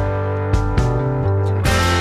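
Background music: guitar-led instrumental with a steady bass line.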